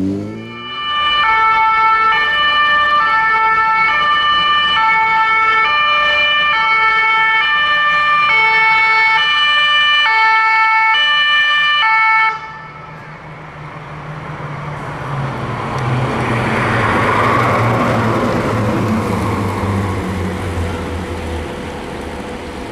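Emergency vehicle two-tone siren, alternating between two pitches about once a second. It stops abruptly after about twelve seconds, and a heavy vehicle's engine is then heard passing, loudest a few seconds later.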